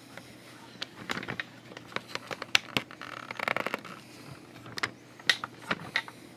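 Handling noise from a handheld camera: scattered clicks and small knocks of fingers shifting on the camera body, with a short rustling rush a little past halfway.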